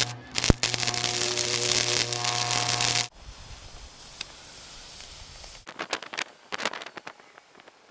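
Flux-core wire-feed welder arc crackling steadily for about three seconds, with a steady low hum under it. It cuts off suddenly, leaving a quiet stretch with a few faint clicks.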